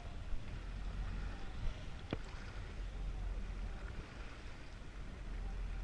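A boat's engine running steadily with a low rumble, under an even hiss of wind and water. There is a single sharp click about two seconds in.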